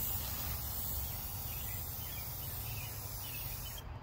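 Steady outdoor background noise: a low rumble and a high hiss, with faint high chirps now and then.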